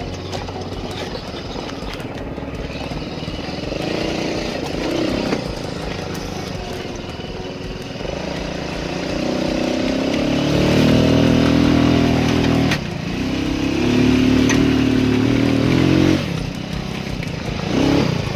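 Small engine of an off-road go-kart buggy pulling it along a rough dirt trail, revving up and holding high twice in the second half with a brief drop between, then rising again near the end. A few sharp knocks come through from the rough ground.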